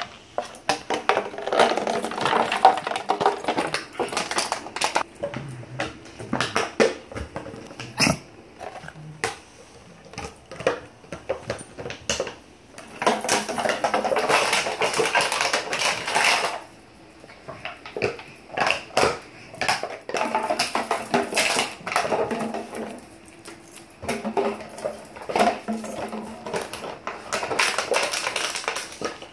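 Small dogs biting and crushing an empty plastic bottle: rapid crackling and crunching of the plastic in bursts of a few seconds, with short pauses between.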